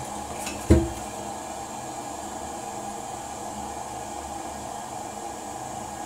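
Toilet cistern hissing steadily as water trickles in through a fill valve turned low, with one dull knock about a second in. The toilet won't flush, which the owner thinks may be because the flapper wasn't closed.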